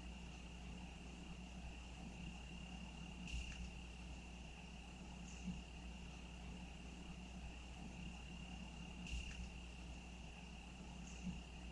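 Cricket trilling steadily in a single unbroken high note. A short call repeats about every six seconds, and there are two faint clicks over a low steady rumble.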